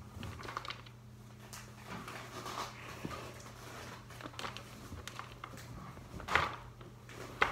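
Plastic packaging of a bag of confetti paper bedding crinkling and rustling as hands tug and squeeze at it, trying to get it open, with a louder rustle about six seconds in.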